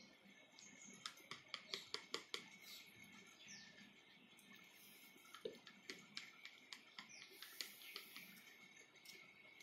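Small plastic paint pots clicking as they are handled and their snap lids opened, a quick run of clicks about a second in and more scattered ones later. Faint bird chirps in the background.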